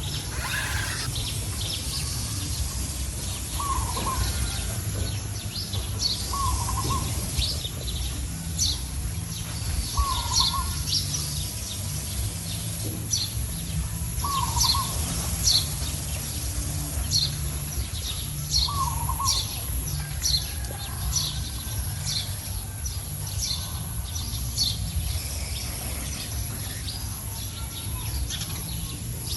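Outdoor birdsong: many short high chirps, with a lower call repeating about every three to four seconds, over a steady low rumble.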